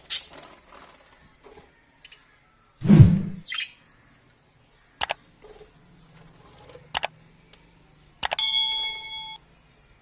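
Budgerigars in an aviary cage giving a few short chirps, one sliding down in pitch. The loudest sound is a dull thump about three seconds in. There are sharp clicks near the middle, and near the end a click followed by a ringing tone that lasts about a second.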